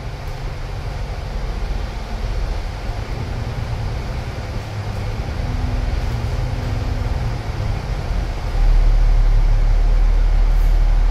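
Cabin noise on the upper deck of an Alexander Dennis Enviro500 double-decker bus on the move: a steady low rumble of engine and road. About three-quarters of the way through it steps up louder, with a deeper drone.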